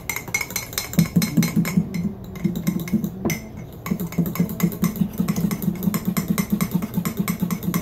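A spoon clinking rapidly against the inside of a ceramic mug, beating egg yolks, sugar and grape juice into a froth, several strikes a second, with a brief pause a little past the middle.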